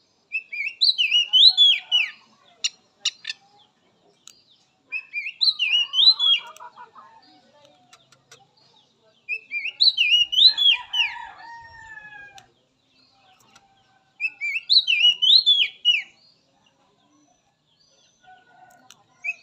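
Oriental magpie-robin (kacer) singing the same short whistled phrase of rising and falling notes four times, with a pause of a few seconds between phrases.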